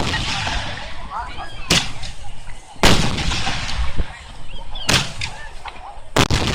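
Aerial firework shells bursting, about five sharp bangs in a row with a rumbling echo; the loudest comes about three seconds in. Spectators' voices are heard between the bangs.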